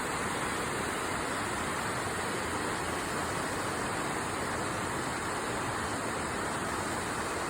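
River water babbling over stones: a steady, even rush of flowing water.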